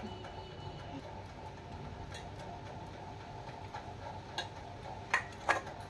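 Eating sounds: a few short clicks and taps over a steady low room hum, the clearest two coming close together near the end.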